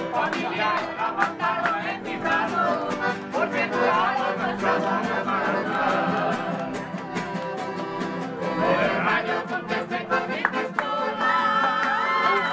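Live acoustic folk music: strummed acoustic guitars, a piano accordion and a violin playing together while several people sing along.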